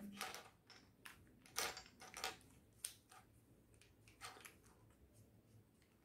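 Faint clicks and scrapes of plastic Rubik's cube pieces as hands twist and pull at the partly dismantled cube, about six separate small clicks spread over a few seconds.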